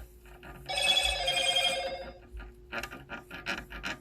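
A high, steady electronic ringing tone lasting about a second and a half, then a quick run of short rubbing or scraping strokes, about three or four a second.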